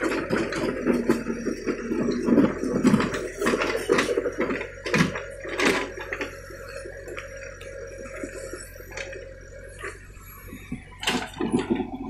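JCB 3DX backhoe loader breaking up an old asphalt road surface: the bucket scrapes and knocks while broken chunks of asphalt clatter down, over the steady running of the diesel engine. The clattering is dense for about six seconds, thins out, and picks up again near the end.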